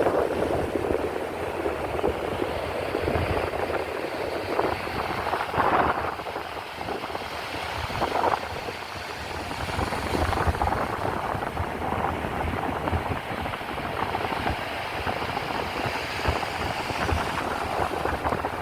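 Wind buffeting the microphone over the wash of surf on a beach: a steady, noisy rush that swells and eases unevenly.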